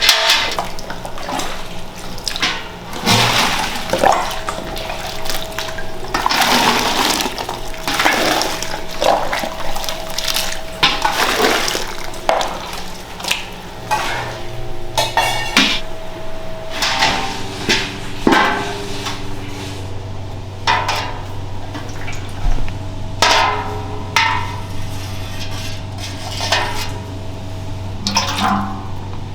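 Liquid pouring and splashing in repeated rushes, each a second or two long, over a steady low machine hum.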